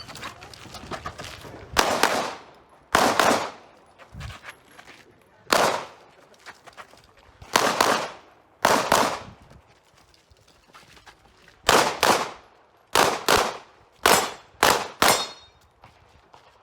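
Pistol shots fired in quick pairs, the pairs one to two seconds apart: a competitor double-tapping each target while shooting a timed practical-shooting stage.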